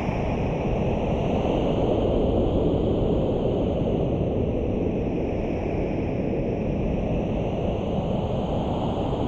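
Steady rushing wind sound, a deep even noise with a slow, hollow sweep drifting up and down through it.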